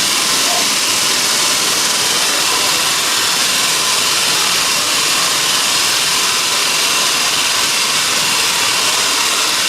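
Sawmill machinery running steadily: a constant, loud, hissing noise with no breaks or changes.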